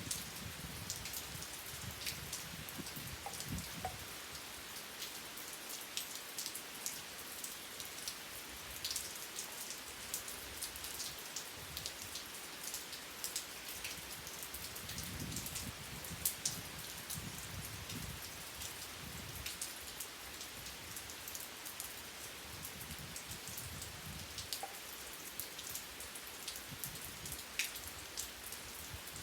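Steady rain falling, with individual drops ticking sharply on a surface now and then.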